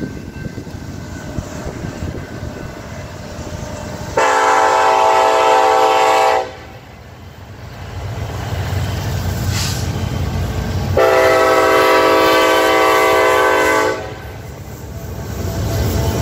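Multi-tone air horn of a BNSF SD70ACe diesel locomotive sounding two long blasts, the first about four seconds in and the second, longer one about eleven seconds in. Between and after the blasts the low rumble of the approaching freight train grows louder.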